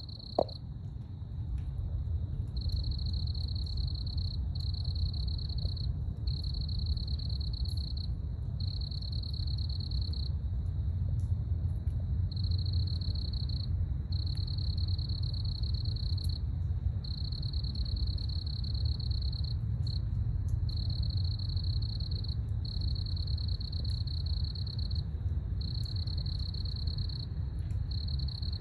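Night insects trilling in a high, steady buzz that goes on in stretches of a second or two with short breaks, over a steady low rumble. A brief knock comes right at the start.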